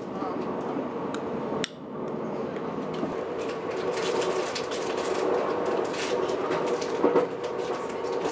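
Steady running noise inside a moving passenger train carriage, a hum with scattered small clicks and knocks. A sharper knock comes near the end.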